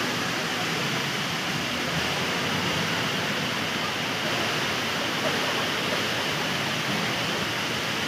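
Multi-storey indoor waterfall: a sheet of water falls down a tall wall into a pool, making a steady rushing hiss that does not change.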